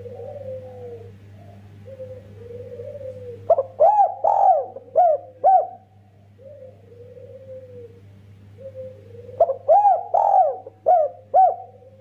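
Spotted dove cooing: soft low coos, then a loud phrase of about five quick arched notes about four seconds in, and the same loud phrase again near ten seconds.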